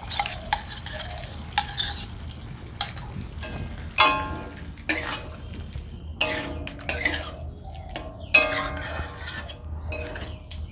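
Metal spatula stirring and scraping cauliflower in a thick gravy in a metal kadai, in irregular strokes, the pan ringing after several of them.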